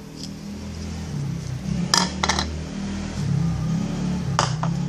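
A spoon knocking and scraping against a ceramic bowl: a pair of sharp clicks about two seconds in and another pair near the end, over a steady low hum.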